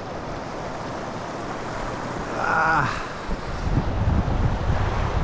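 Creek water rushing steadily. A short vocal exclamation comes about two and a half seconds in, and wind buffets the microphone with a low rumble over the last couple of seconds.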